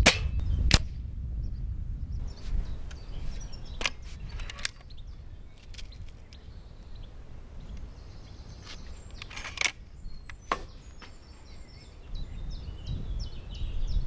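AirForceOne Sirocco break-barrel spring-piston air rifle being shot and reloaded: two sharp cracks under a second apart at the start as it is fired, then clicks and clunks of the barrel being broken to cock, loaded and locked back, the loudest pair about ten seconds in. Wind rumbles on the microphone and birds chirp.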